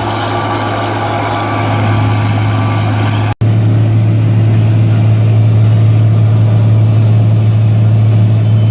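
Steady, loud mechanical drone with a deep hum; it breaks off abruptly about three seconds in, then returns louder and steadier as a REM VRX grain vacuum runs, pumping peas out of a bin.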